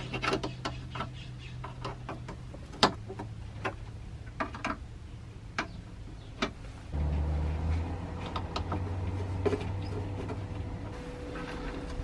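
Scattered small clicks and taps of hands fitting a dashboard control knob onto its shaft and working its set screw with an Allen wrench, over a steady low hum that gets louder about seven seconds in.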